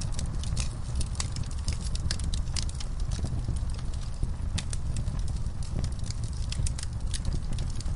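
Wood fire in a fireplace crackling, with many irregular sharp pops and snaps over a steady low rumble of the burning logs.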